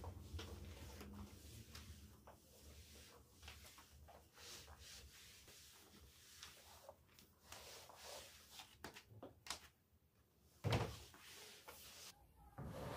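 Faint scattered clicks and light knocks of household things being handled, with one louder knock a little before the end.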